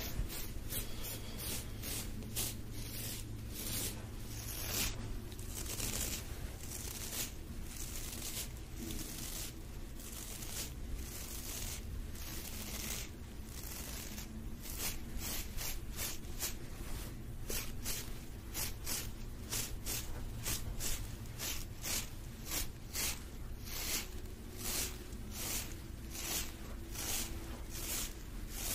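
Close rubbing and scratching strokes of hoodie fabric and a hand against the microphone, about one to two a second, over a steady low hum.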